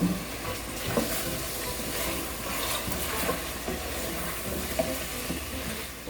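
Chicken masala sizzling as it fries in a pan, stirred with a spoon, with a few sharp clicks of the spoon against the pan.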